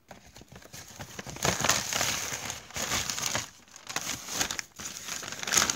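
Crinkling and rustling of a shopping bag and its wrapping as an item is dug out of it, in irregular bursts that are loudest in the middle and again near the end.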